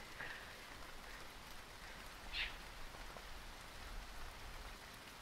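Light rain falling, a faint steady hiss. A single brief higher-pitched sound stands out about two and a half seconds in.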